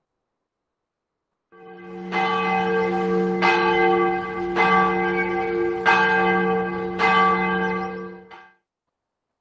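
A church bell tolling, five strokes a little over a second apart, each ringing on into the next; the sound swells in at first and dies away near the end.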